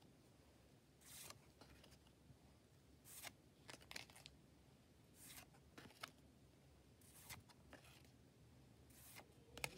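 Faint soft swishes of trading cards being slid off the front of a small hand-held stack and tucked behind, one every second or two, over quiet room tone.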